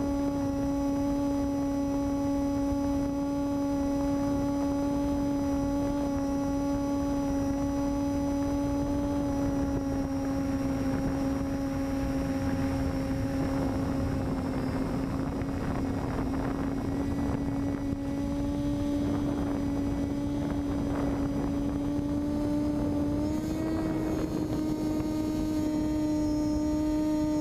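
Electric motor and propeller of an FPV model airplane heard through the onboard audio as a steady whine, rising slightly in pitch near the end as the throttle and current draw go up.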